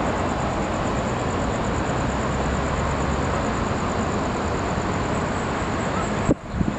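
Steady roar of street traffic, an even noise without any distinct event, cutting out abruptly near the end.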